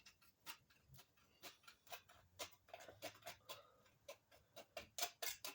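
Faint irregular clicking and ticking, a few sharp clicks a second that come closer together toward the end.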